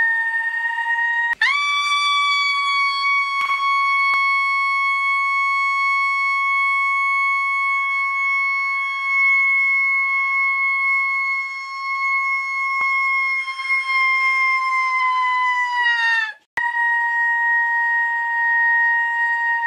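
A long, loud, high-pitched squealing tone standing in for a squishy 'screaming' as it grows. It holds one pitch, jumps a little higher about a second and a half in, sags slowly, then dives and cuts off about sixteen seconds in, before a slightly lower steady squeal comes back.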